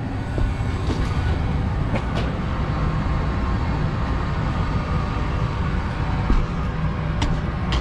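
York rooftop HVAC unit running with only its blower fan on: a steady, even low rumble, with a few light ticks.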